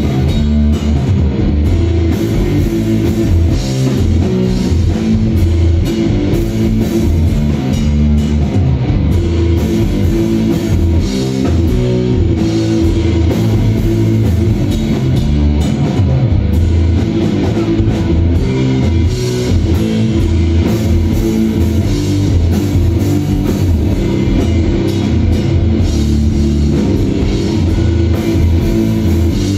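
Live instrumental rock from a three-piece band: distorted electric guitar, electric bass and drum kit playing loud and steady, heard through a club's PA from the audience.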